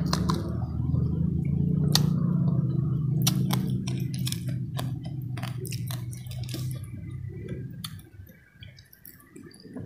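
Close-miked chewing of grilled pomfret and rice eaten by hand: wet mouth sounds with many sharp lip smacks and clicks. It goes much quieter about eight seconds in.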